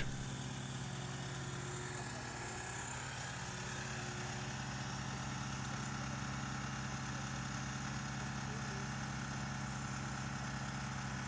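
Engine of a heavy work machine idling steadily, an even low hum.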